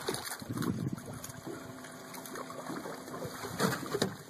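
Striped bass thrashing and splashing at the surface beside the boat as it is brought into the landing net, with two sharp knocks near the end.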